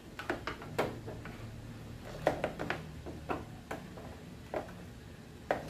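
Cables and their plugs being handled on a wooden TV console, giving irregular light clicks and knocks, about a dozen, over a faint steady low hum.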